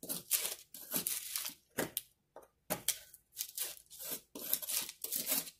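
Knife blade scraping leftover gypsum chunks off the paper facing of a drywall patch, in short, repeated strokes, with a brief pause about two seconds in.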